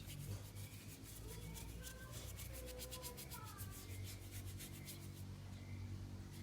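Rapid, steady back-and-forth scrubbing strokes, from cleaning motorcycle engine parts by hand.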